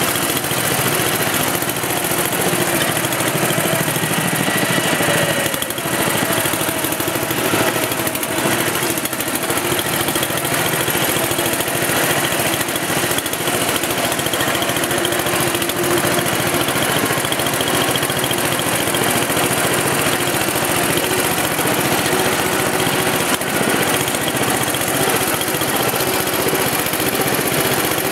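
Riding lawn mower's small engine running steadily and loud, close to the microphone, as the mower drives along.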